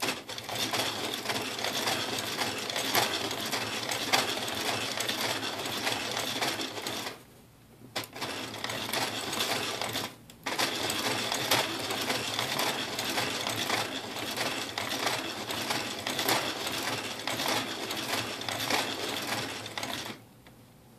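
Hand-cranked 3D-printed plastic fish automaton running, its printed gears and cams meshing in a rapid, rough plastic clatter caused by the small layer steps left from the 3D printing. The clatter breaks off briefly about seven seconds in and again just after ten seconds, and stops about a second before the end.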